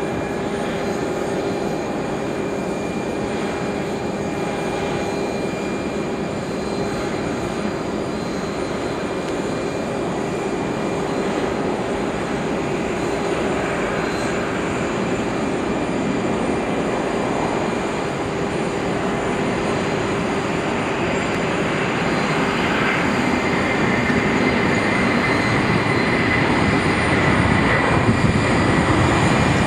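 Twin Pratt & Whitney PW4000 turbofan engines of an Airbus A330-223 at takeoff power during the takeoff roll: a continuous jet roar with a steady whine over it. It grows gradually louder as the airliner accelerates toward the camera, the whine strongest near the end.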